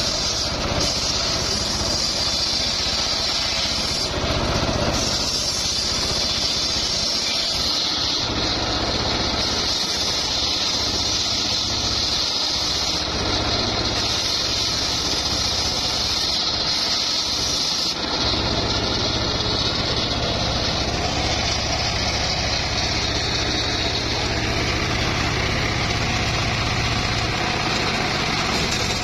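Homemade engine-driven circular saw bench running steadily while its blade rips mahogany boards into rafters. The engine's low note thins for a stretch in the middle and then comes back.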